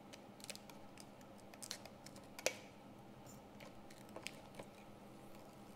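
Faint, scattered clicks and light scratching of a blade cutting the polariser film on an LED TV panel along a ruler, with one sharper click about two and a half seconds in.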